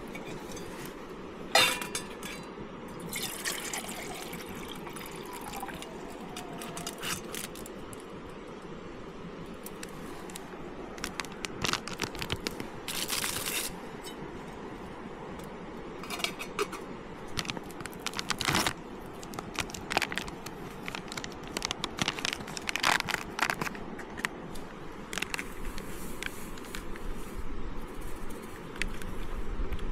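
Camp cookware being handled: clinks of a titanium mug and its lid being set on a small gas canister stove, rustling of aluminium foil, and water being poured. A sharp clink about a second and a half in is the loudest.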